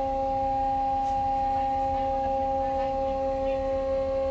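Rescue boat davit machinery giving a steady, unchanging whine with several overtones while the boat is lowered, over a low rumble.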